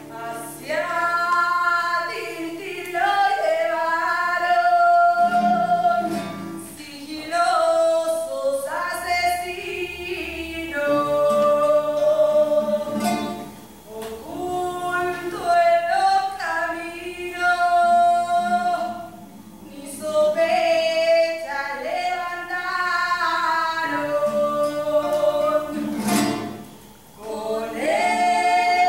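A song: singing in long held phrases with acoustic guitar accompaniment.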